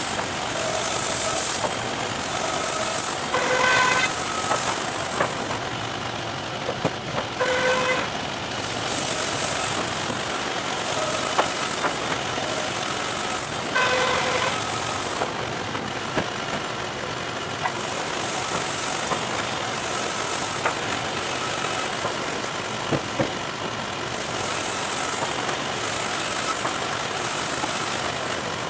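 Wood-Mizer LT50 band sawmill and shop machinery running steadily, with boards knocking now and then. Three short pitched tones sound in the first half.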